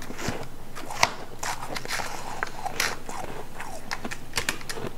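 Close-up crunching and chewing of a mouthful of refrozen powdery ice: a quick run of crisp crunches, with the loudest, sharpest bite about a second in.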